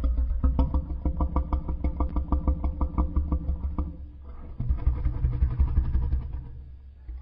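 Custom Godzilla monster sound effect: a low, rapidly pulsing growl in two long phrases, with a short dip about four seconds in.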